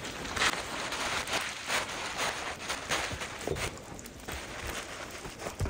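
Dyneema tarp fabric rustling and crinkling in irregular bursts as it is handled and pulled down off the hammock ridgeline, with a sharp thump near the end.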